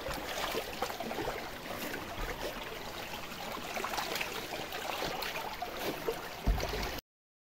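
Fast spring water rushing and churning through a narrow rock-walled channel. There is a single low thump near the end, and then the sound cuts off suddenly.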